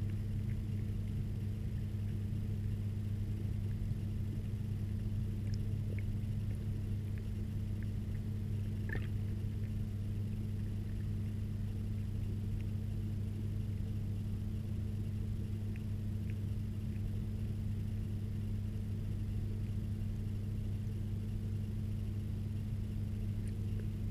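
A steady low hum heard through water, with a few faint ticks scattered through it.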